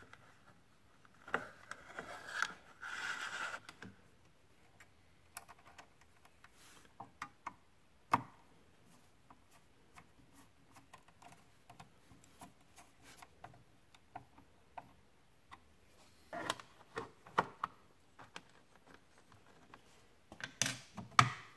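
Scattered small clicks and scrapes of a screwdriver and fingers working wires into the screw terminals of a 3D printer's power supply. A short rustle of handling comes in the first few seconds, and a cluster of louder clicks comes near the end.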